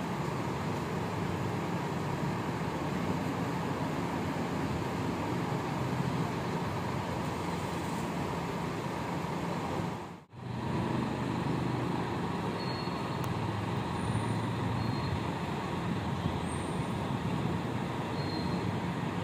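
Coach buses' diesel engines running as the buses move slowly, a steady engine hum. The sound drops out briefly about ten seconds in, then the hum resumes.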